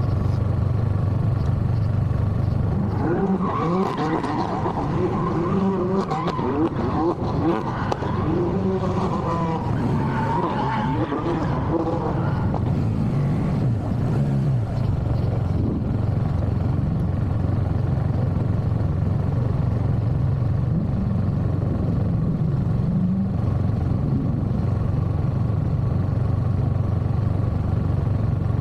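A car's tires screeching with a wavering pitch over a steady running engine. The screech sets in about three seconds in and dies away after about twelve seconds, leaving the engine drone.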